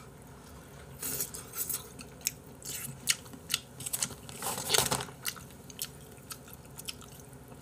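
A person chewing a mouthful of tteokbokki rice cakes close to the microphone, with many small wet mouth clicks. About halfway through there is a brief papery rustle as a tissue is taken.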